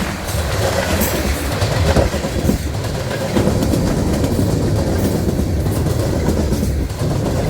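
Freight train cars rolling past close by, a steady rumble with the wheels clicking over rail joints about once a second.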